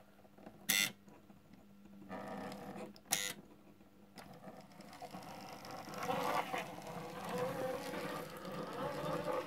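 Märklin BR 81 model steam locomotive: two sharp clicks about one and three seconds in, then its electric motor and wheels running on the metal track, louder in the second half as it drives round the curve.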